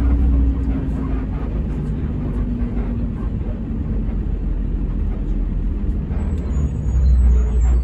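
Hino RG230K coach's diesel engine running with a heavy low rumble. Its engine note slowly falls in pitch over the first few seconds as it eases off, then the rumble swells again near the end.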